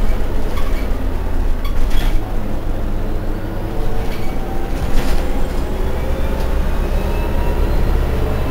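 Inside a 2003 Irisbus Agora L CNG city bus on the move: a steady low rumble from its Renault MGDR gas engine, with a few sharp knocks and rattles from the body. From about halfway, a whine rises steadily in pitch as the bus gathers speed through its ZF 4HP 500 automatic gearbox.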